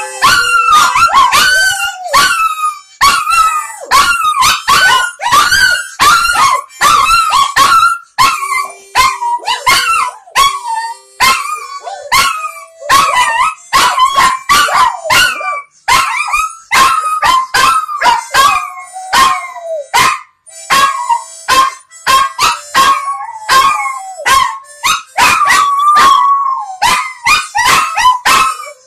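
Two small dogs, a chihuahua and a long-haired lapdog, howling and yipping along to a harmonica: high, wavering, rising-and-falling howls over the harmonica's held notes.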